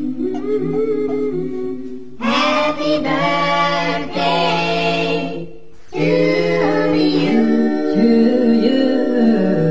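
Unaccompanied singing: voices holding long notes and chords, with a short dip about six seconds in.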